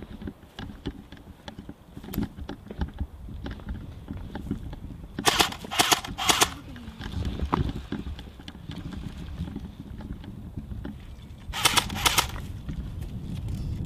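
Airsoft electric guns firing short full-auto bursts: three quick bursts about five seconds in and another around twelve seconds in, over a low steady rumble.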